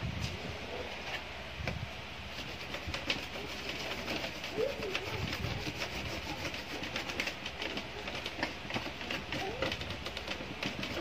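Scattered small clicks and taps of plastic printer gears and parts being handled and fitted, with a couple of faint short low calls in the background.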